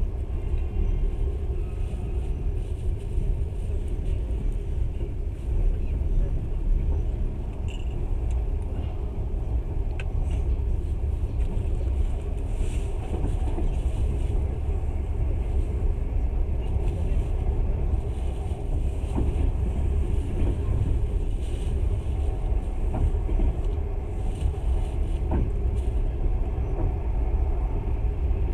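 Steady low rumble of a moving passenger train heard from inside the carriage, with a few faint clicks.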